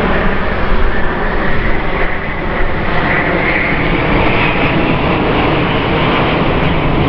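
Airbus A380's four Engine Alliance GP7000 turbofans during a low-speed, high-alpha flypast: a steady, loud jet roar with a whine in it that rises a little about halfway through.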